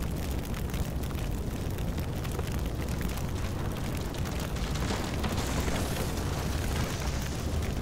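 Bonfire of branches burning, with many small crackles and pops over a steady low rumble of the flames.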